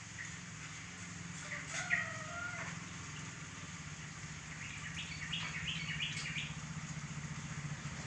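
Chicks peeping in short high chirps, a few about two seconds in and a quick run of them between five and six seconds, over the steady low hum of an egg incubator.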